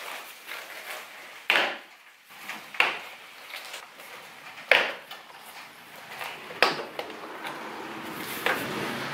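Ford Fiesta ST plastic engine cover being pulled up off its rubber mounting grommets: about five sharp plastic pops and knocks, roughly two seconds apart, with quieter handling rustle between them.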